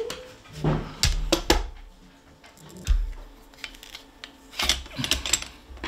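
Hand tools and metal gun parts being handled during disassembly: scattered sharp clicks and clatter with a few dull knocks, and a quick run of clicks near the end.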